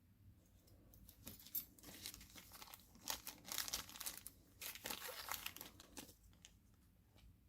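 Faint, irregular crinkling and rustling of packaging being handled while lock picks are unpacked, stopping near the end.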